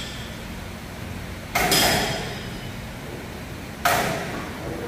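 Two sharp metal-on-metal knocks, about two seconds apart, each ringing briefly, over a steady low hum.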